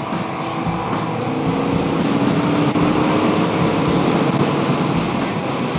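Kawasaki Vulcan S parallel-twin engine running at road speed, with wind rushing over the helmet-mounted microphone, under background music.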